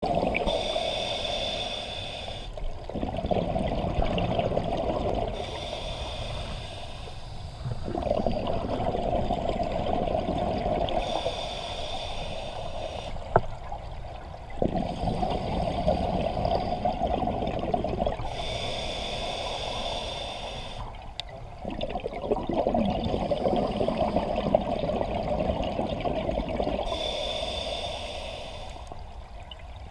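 Scuba diver breathing through a regulator underwater: a hissing inhale of two to three seconds alternates with a longer bubbling exhale, about five breath cycles. One sharp click a little under halfway through.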